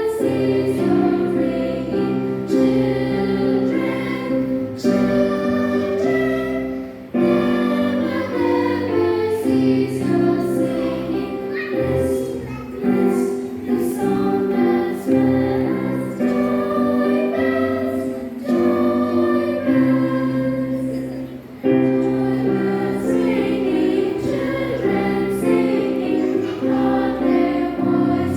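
Junior church choir singing a hymn together, in sustained phrases with two brief breaks between lines.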